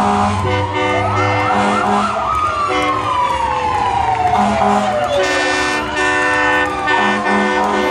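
Emergency sirens wailing, several at once: long slow falls in pitch, with shorter rises near the start and the end, over steady held horn tones.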